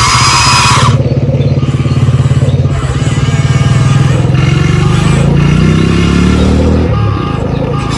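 A loud hiss with a high whine cuts off about a second in. A low, pulsing engine-like rumble then runs, rising in pitch for several seconds as if revving and dropping back near the end.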